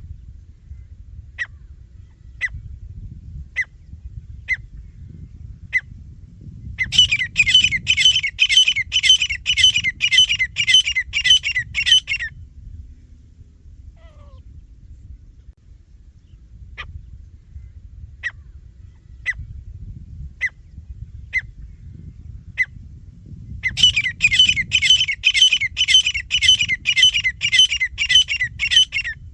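Grey francolin (teetar) calling: a few single sharp notes about a second apart, then a loud, fast run of repeated call phrases about two a second for some five seconds. The same pattern comes round again, over a low rumble throughout.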